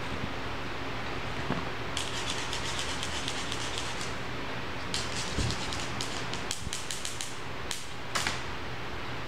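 Rapid light scratchy clicking and rustling in two runs, over a steady background hiss, with a couple of sharper clicks near the end.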